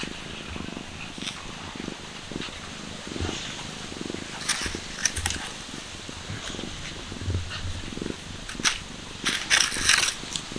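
Cat purring steadily as it is petted, a continuous low rhythmic rumble. Over it come crackling rustles of dry grass and pine needles as the cat squirms on its back, in two bursts, loudest near the end.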